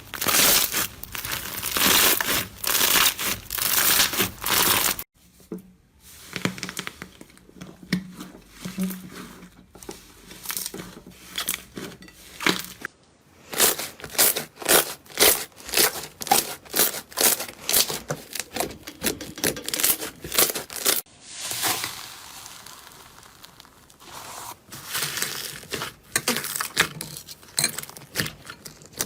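Slime being squeezed, poked and pressed by hand, giving rapid runs of crackling, popping clicks. It changes abruptly three times as one short slime clip cuts to the next.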